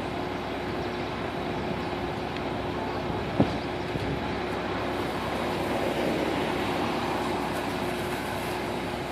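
Diesel engine of a concrete mixer truck running steadily, a continuous hum, with one sharp knock about three and a half seconds in.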